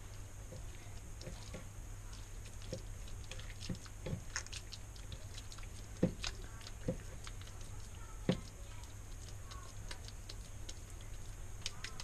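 Hands squeezing and patting a moist egg-and-potato patty mixture, making irregular small wet clicks and taps, with louder knocks about six and eight seconds in, over a steady low hum.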